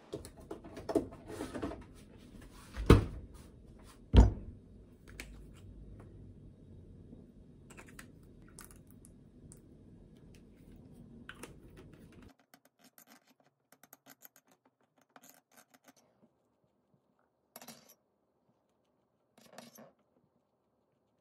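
Kitchen handling sounds of sliced sandwich bread on a wooden board, with two sharp knocks a little over a second apart a few seconds in, over faint steady background noise. After a cut the background drops away, leaving sparse soft clicks and scrapes as mustard mayonnaise is piped into a bowl and spread on bread.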